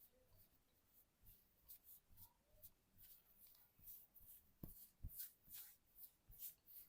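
Faint, soft rubbing strokes of hands in a head and back massage, about two to three a second, with two soft low thumps a little after the middle.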